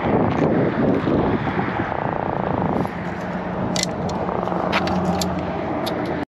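A hand-held Atlantic croaker croaking: a rapid purring pulse for the first few seconds. From about three seconds in, a steady low engine hum takes over, with a few sharp clicks.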